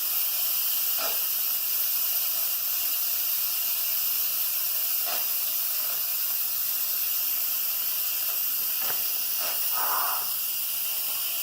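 Steam hissing steadily out of an 8-quart Instant Pot's steam release valve turned to vent, letting off the remaining pressure after a natural release.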